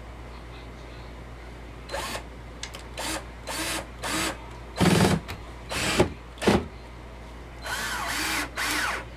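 A power drill driving screws into door hinges in a series of short bursts, the motor pitch rising and falling with each trigger pull. A longer run of about a second comes near the end.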